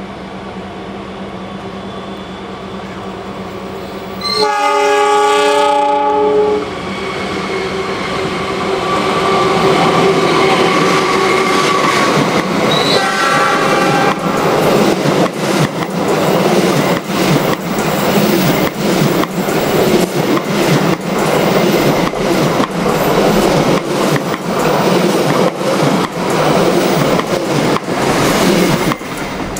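KA Lodaya passenger train passing on the crossing track. Its locomotive horn gives one long blast about four seconds in and a short one about nine seconds later, and then the wheels clack rhythmically over the rail joints as the coaches go by.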